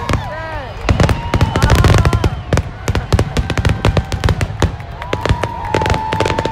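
Fireworks display bursting close by: a rapid, irregular run of cracks and bangs over a constant low rumble. Whistling shells glide up and down in pitch, and one long steady whistle sounds near the end.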